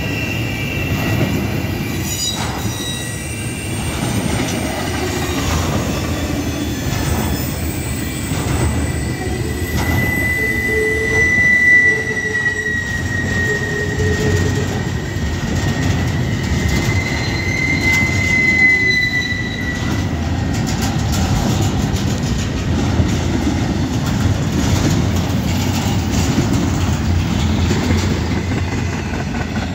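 Norfolk Southern freight train's cars rolling past: a steady rumble of wheels on rail, with thin squealing wheel tones that waver up and down, loudest in the middle stretch.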